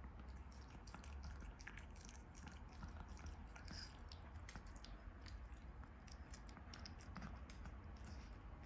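A smooth-coat Chihuahua chewing: faint, irregular little clicks and crunches of its mouth and teeth.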